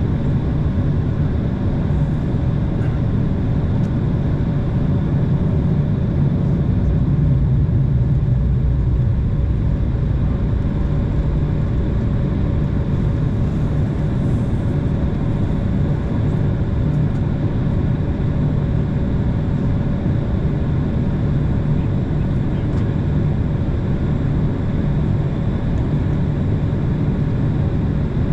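Jet airliner's engines at taxi power heard from inside the cabin: a steady rumble with a constant mid-pitched tone running through it.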